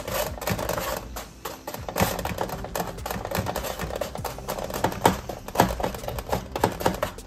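Rubber spatula pushing and tapping sticky candied walnut pieces across a parchment-lined metal sheet pan: a run of irregular clicks, taps and light scrapes.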